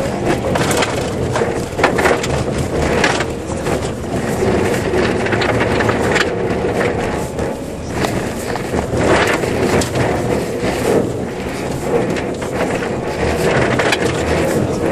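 Honda Civic Type-R FN2 driven hard on a snowy road, heard from inside the cabin: the four-cylinder engine running under load beneath loud road noise, as rally studded tyres crunch over snow and ice with frequent knocks and thumps from the rough surface.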